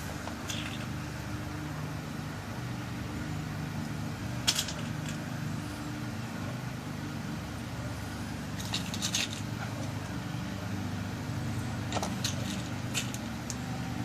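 Small sharp clicks and ticks, a few scattered and a short cluster, as new pins are dropped into the pin chambers of a lock cylinder during rekeying, over a steady low hum.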